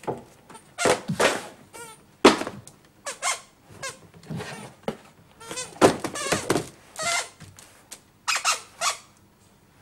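High-pitched squeaky chatter from a small puppet creature: a run of short squeaks with wobbling pitch, many in quick succession, with a couple of thumps among them in the first few seconds.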